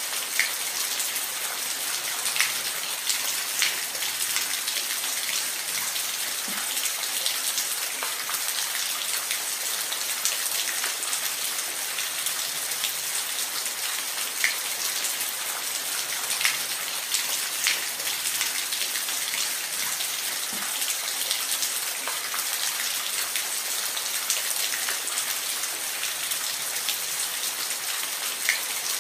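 Steady rain falling in a forest, a dense hiss with individual drops ticking now and then on the leaves and ground.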